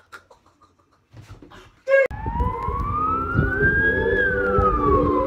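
Intro music starts abruptly after a couple of seconds of faint clicks: a siren-like tone sweeps up for about two seconds and then slides back down, over sustained low chords and a beat.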